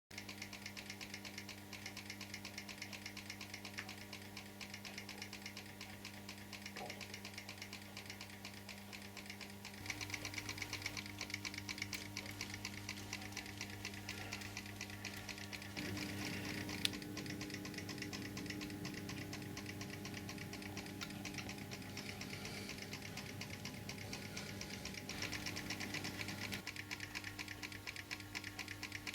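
A small motorised N-scale model mechanism clattering with fast, even ticks over a steady electric hum. The hum changes pitch about ten and sixteen seconds in, and there is one sharper click a little after the second change.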